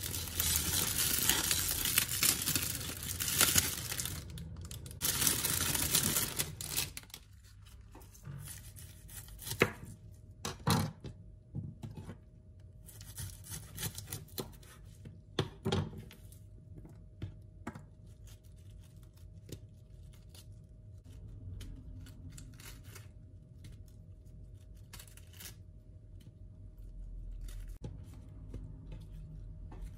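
A plastic produce bag crinkling and rustling loudly as it is torn open for the first several seconds. After that come a few sharp knocks of a knife on a wooden cutting board and soft handling of lettuce leaves, over a faint steady hum.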